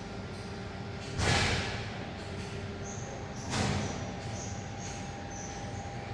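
Two short, loud rushes of noise about two seconds apart, each fading away quickly, over a steady low hum with faint high-pitched chirps.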